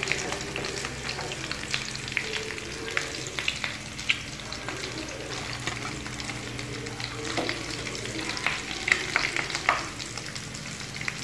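Breaded potato-and-egg kababs shallow-frying in hot oil in a frying pan: a steady sizzle full of quick crackles and pops, with a few louder pops near the end.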